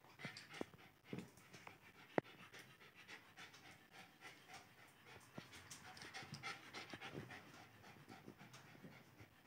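Lhasa Apso puppy panting quickly and faintly, with a few light clicks, the sharpest about two seconds in.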